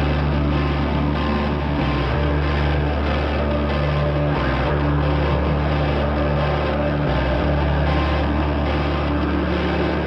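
Background music with a sustained bass line whose notes change every two to three seconds under steady held chords.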